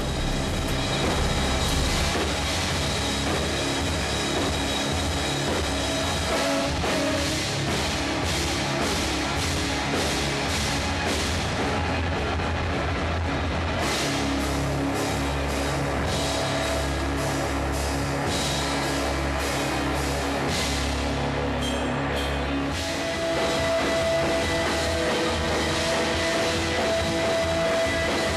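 Rock music with a drum kit, sounding steady and dense throughout.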